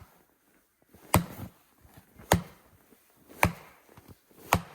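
Wood being chopped into small kindling for a campfire: four sharp, evenly spaced chopping strikes, about one a second.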